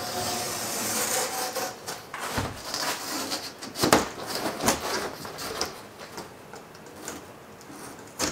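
Razor knife cutting along the back of a snapped sheet of Kerdi-Board foam tile backer, with the board's scraping and rubbing and a run of sharp clicks and knocks, the loudest about four seconds in.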